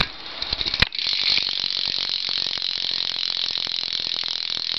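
BMX rear-hub freewheel clicking loudly and rapidly as the wheel spins freely with the bike upside down, its ratchet pawls ticking in a fast, even stream. It starts just under a second in, after a sharp knock.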